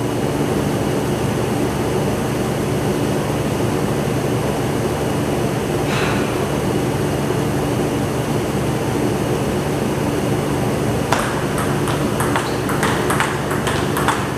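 Table tennis rally: the ball clicking off paddles and table in quick, irregular succession, starting about eleven seconds in after a single knock near six seconds. A steady low hum runs underneath.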